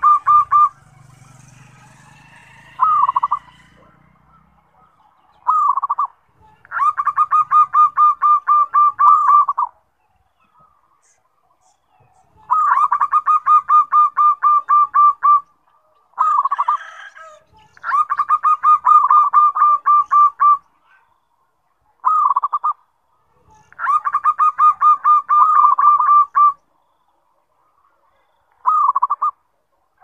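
Zebra dove (perkutut, a local Indonesian bird) singing loudly: each phrase is a short introductory coo followed by a run of rapid staccato notes lasting about three seconds. There are five such runs, with short single calls and pauses between them.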